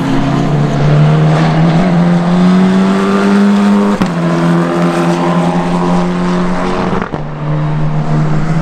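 Tatuus F4 T-021 Formula 4 single-seater's engine running hard on track, its note climbing slowly, then holding steady. The note breaks off abruptly twice, about four and seven seconds in.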